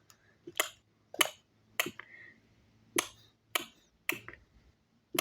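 Sharp finger snaps keeping a steady beat, a little under two a second, with a beat skipped a couple of times.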